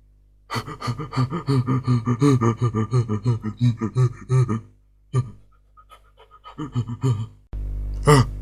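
A cartoon character's voice making a rapid string of short pitched nonsense syllables for about four seconds, then a few scattered vocal sounds. Near the end a steady low hum comes in, with one short sharp burst.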